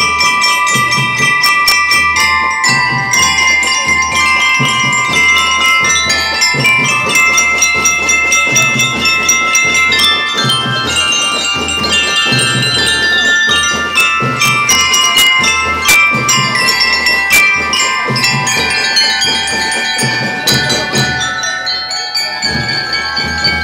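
Drum and lyre band playing a tune: xylophones and other mallet percussion ring out the bright, bell-like melody over a steady bass drum beat about once a second.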